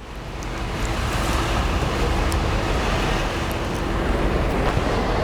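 Steady city street traffic noise, fading in over the first second.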